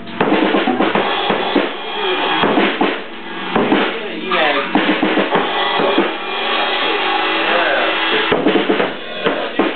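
A drum kit being played in loose, irregular hits on the bass drum and snare.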